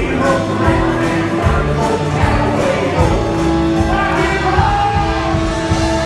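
Live band playing, with electric guitar, drums and singing voices.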